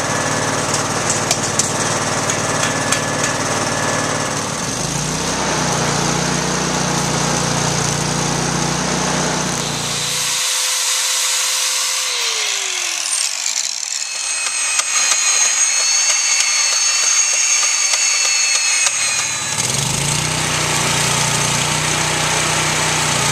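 Power tools running during steel frame fabrication. A steady machine hum goes for about ten seconds, then cuts out. A tone slides down as something winds down, and higher steady whines carry on. The hum starts again near the end.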